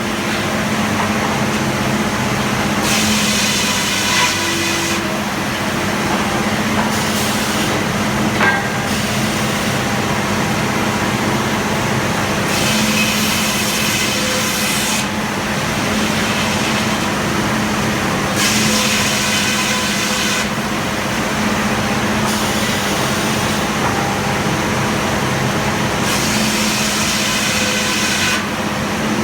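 A Frick circular sawmill running steadily with a constant low hum. Four times, for about two seconds each, the blade bites into the log and a bright, hissing cutting sound rises over the hum.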